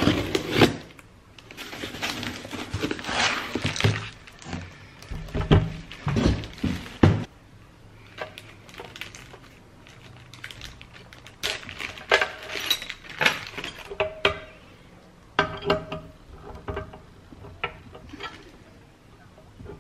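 Unboxing by hand: a box cutter slitting packing tape and cardboard being scraped and pulled open, then plastic bags rustling and scattered light clicks and metal clinks as the parts of a corner-rounding press are unpacked and handled.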